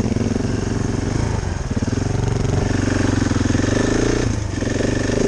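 A motorcycle engine running steadily, with a brief dip about four seconds in.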